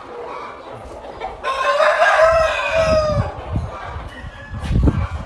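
A rooster crows once, a single drawn-out call lasting about two seconds, starting about a second and a half in. Low dull thumps follow near the end.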